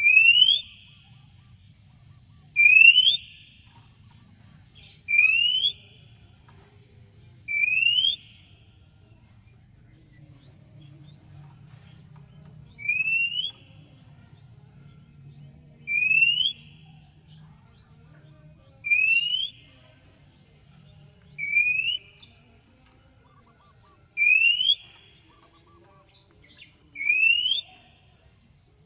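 Oriental magpie-robin (kacer) whistle: a short, loud, upward-sweeping whistled note repeated about ten times, roughly every two and a half to three seconds, with one longer pause in the middle. The call is used to provoke other kacer into answering and singing.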